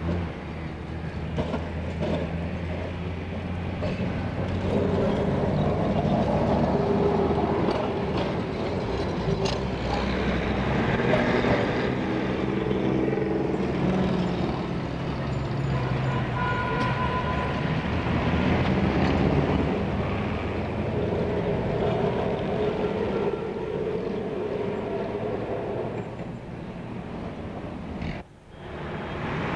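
Electric street trams running on track, with wheel and motor noise and a steady low hum at first. The sound cuts out sharply for a moment near the end.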